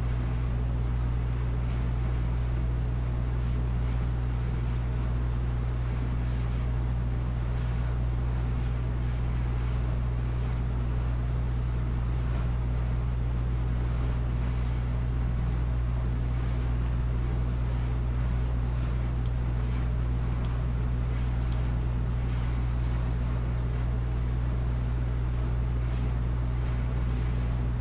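Steady low hum with an even hiss over it, unchanging throughout, and a few faint ticks a little past the middle.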